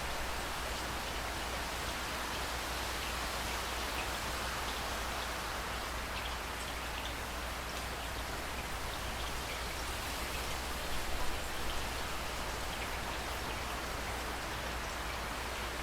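Steady rain falling, with individual drops ticking on a hard surface; a few louder drips land close by about eleven seconds in.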